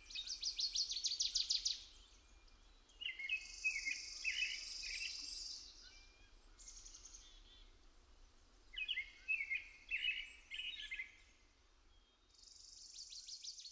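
Small birds calling: groups of short chirps and rapid high trills, with a few quiet gaps between them.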